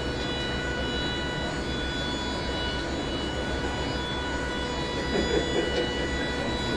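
Steady machine hum and noise with several constant high whining tones, with faint voices in the background near the end.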